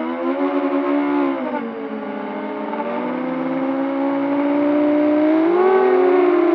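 Armattan Chameleon 6-inch quadcopter's brushless motors (2207, 1650kv, on 6S) and propellers whining as they fly. Several whines glide in pitch together with the throttle, dropping about a second and a half in, then climbing to a peak around five to six seconds in before easing off.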